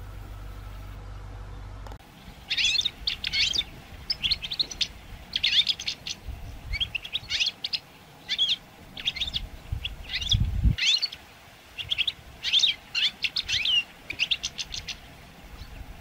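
A flock of European goldfinches twittering: bursts of quick, high, liquid chirps that start about two and a half seconds in and come in clusters one after another. A low steady rumble fills the first two seconds.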